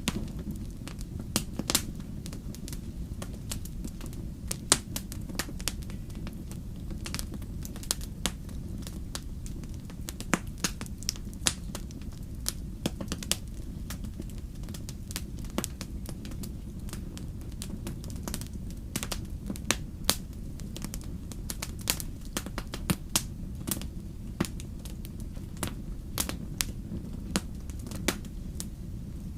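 Wood campfire crackling: irregular sharp pops and snaps from the burning logs, several a second at times, over a steady low murmur of the flames.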